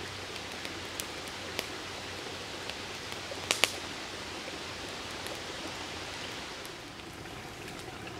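Steady hiss of rain and a creek, with a few sharp crackles from a small campfire of wet kindling, the loudest a quick double pop about three and a half seconds in.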